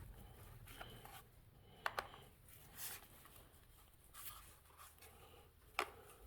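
Faint handling of small plastic lock-actuator parts being pried apart, with a handful of sharp clicks and scrapes spread out.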